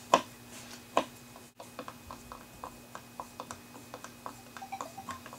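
Hand screwdriver driving a wood screw into the wooden base of a Bluebonnet Bumblebee spinning wheel: two sharp clicks in the first second, then a run of small, irregular ticks as the screw is turned.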